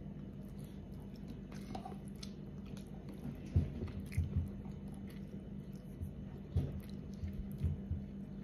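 A person chewing a mouthful of rice and stew close to the microphone, with small wet mouth clicks. A few dull low knocks come in the second half, over a steady low hum.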